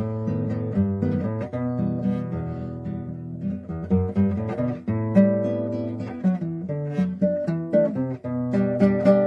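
Acoustic guitar music: plucked and strummed notes in a continuous melody.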